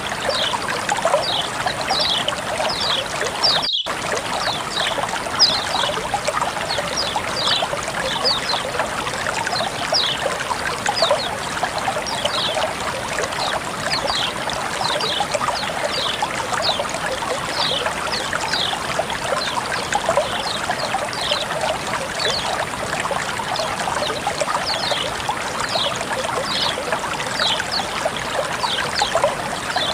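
Water flowing and trickling steadily, with many quick high-pitched bubbling plinks scattered through it. The sound drops out completely for an instant about four seconds in.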